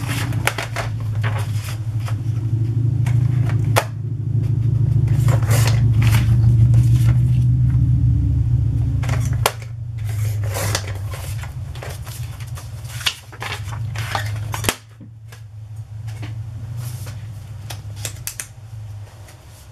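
A sliding paper trimmer being worked on patterned paper: repeated sharp clicks and brief rasps of the blade and paper, over a steady low mechanical hum that stops abruptly about fifteen seconds in.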